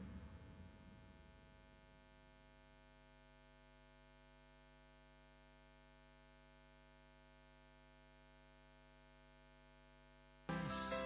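The end of a song fading out over the first two seconds, then near silence with a faint steady hum; music starts again suddenly about ten and a half seconds in.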